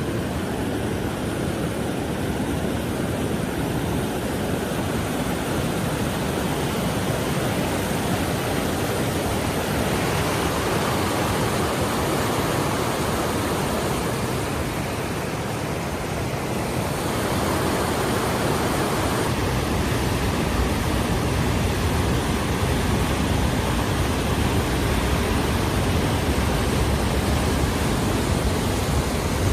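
Steady rushing of a river and waterfall in a gorge, a continuous roar of water that gets a little fuller about two thirds of the way in.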